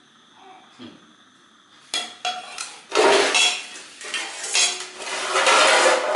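Stainless steel plates, lids and a serving spoon clinking and clattering against a large steel pot. A couple of light clinks come about two seconds in, then a denser, louder clatter with metallic ringing from about three seconds on.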